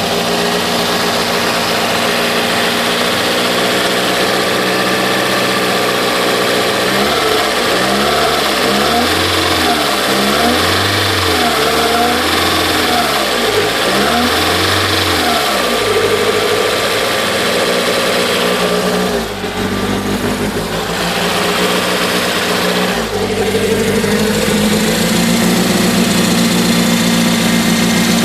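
Supercharged Toyota MR2's engine idling roughly, the idle the owner is trying to cure. About a quarter of the way in, its speed rises and falls several times over some ten seconds, then it settles to a steady run.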